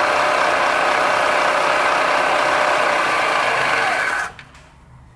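End mill in a vertical milling machine cutting a metal block: a loud, steady machining noise with a whine. It stops abruptly about four seconds in, leaving only a low hum.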